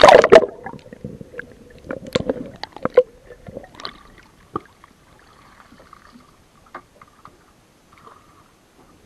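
Seawater splashing and gurgling over a camera microphone dipped under the surface, loudest as it goes in, followed by a few knocks and splashes. It grows quieter after about five seconds.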